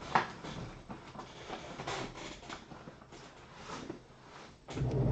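Trading cards and their packaging being handled: soft, irregular rustling and scraping, with a sharp click just after the start and a louder low sound near the end.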